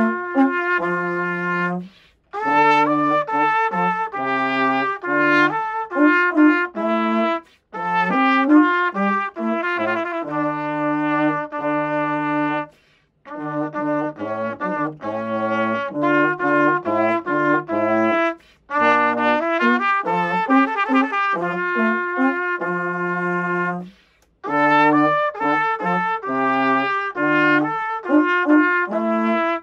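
Trumpet and baritone horn playing a duet, the baritone on a low line beneath the trumpet's melody. The playing comes in phrases broken by short pauses about every five seconds.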